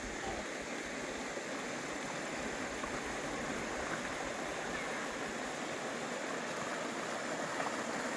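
A shallow, rocky river rushing over rocks and through riffles: a steady, even rush of water.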